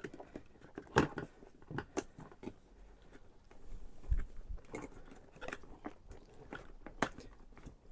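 Hard plastic clicking and scraping as a metal pick pries at the retaining tabs of a car door's power window master switch, with sharp clicks about a second in, a second later, and near the end.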